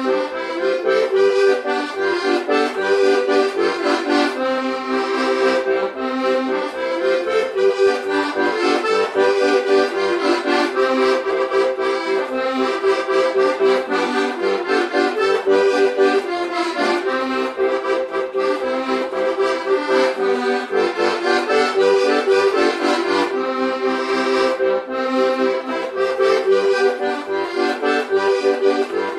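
Accordion playing a traditional folk tune, melody and chords running on without a break.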